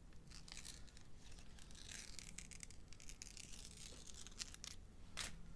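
Faint rustling and scratching of adhesive IR retroreflective tape being handled and peeled, with a denser stretch of crinkling about two seconds in and a sharper click near the end.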